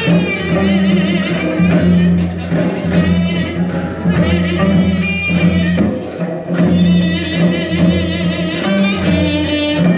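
Korean traditional ensemble music accompanying a bara cymbal dance: a pitch-bending, wavering melody over steady low tones, with crashes of the dancers' bara cymbals every second or two.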